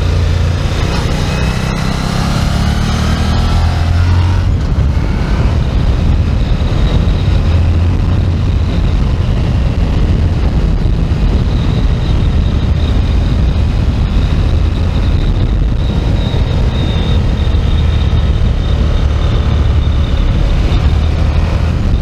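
Suzuki SV 1000 S motorcycle's 996 cc V-twin engine running under way, its revs rising over the first few seconds and then holding steady.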